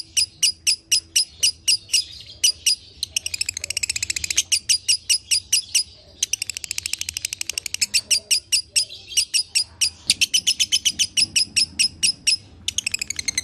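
Fischer's lovebird singing a long, fast run of sharp high chirps, about four or five a second. The run speeds up in stretches into quick trills and breaks off briefly around six seconds in and again near the end. It is the continuous double-run song that keepers call 'dobelan'.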